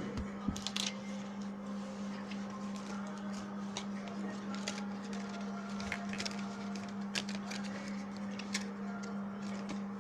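Scattered light clicks and taps of a phone and its packaging being handled, over a steady low electrical hum.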